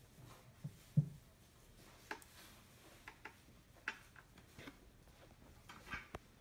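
Scattered small clicks and knocks from hands handling a stereo microscope and the phone filming it. The loudest is a low thump about a second in, followed by a few sharper ticks spread over the following seconds.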